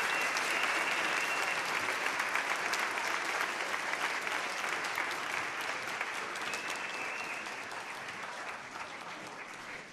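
Audience applauding, a dense patter of clapping that slowly dies away toward the end.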